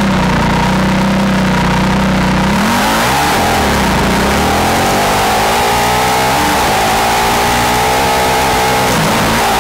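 Formula SAE race car's engine heard from on board: a steady note for the first couple of seconds, then revving up about three seconds in and climbing steadily in pitch as the car accelerates, with a brief dip in pitch near the end before it rises again.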